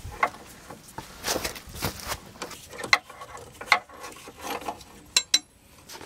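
Hand ratchet with a socket on a long extension, clicking and scraping in irregular strokes as it loosens a bolt on the track loader's undercarriage. Two sharp metal clicks come a little after five seconds in.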